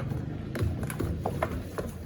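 Electrolux Turbo Compacta LTC07 washing machine's program selector clicking as it is turned to the quick program: a series of short ratcheting clicks.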